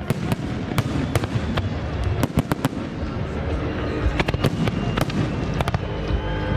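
Large aerial fireworks display: shells bursting in quick succession, many sharp bangs and crackles over a continuous low rumble.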